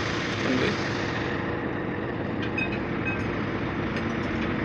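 A truck engine idling steadily, a low hum with a few faint clicks in the second half.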